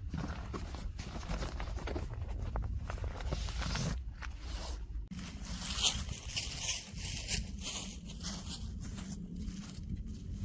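Irregular rustling and scraping of gear or fabric being handled by hand, in a run of short rasping strokes.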